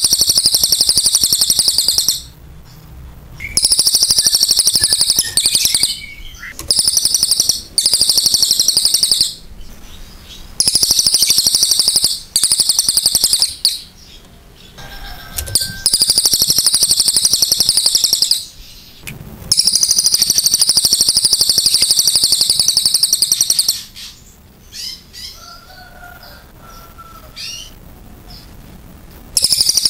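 Cililin (crested jay) singing: high, shrill, rapidly trilled calls in long bursts of one to four seconds, repeated with short pauses, in the long 'shooting' delivery that bird keepers prize. The song falls away for a few seconds near the end, then starts again.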